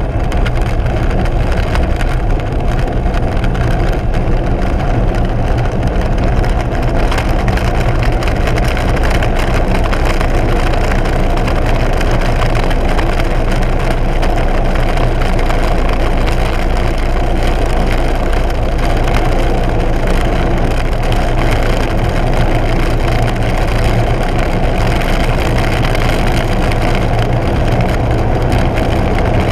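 Air Tractor 802's turboprop engine and propeller running steadily in low flight, heard from inside the cockpit together with the rush of air.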